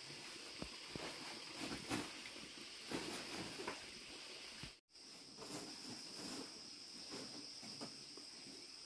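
Steady high-pitched insect chorus, with irregular rustling and light knocks of clothes and a plastic bag being rummaged through. The sound cuts out for an instant about halfway through.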